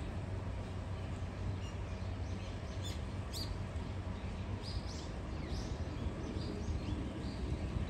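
Small birds chirping, a handful of short high calls clustered in the middle, over a steady low outdoor rumble.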